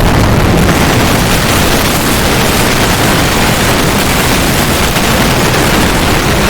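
A very loud, harsh blast of distorted noise that starts abruptly and holds steady without a break.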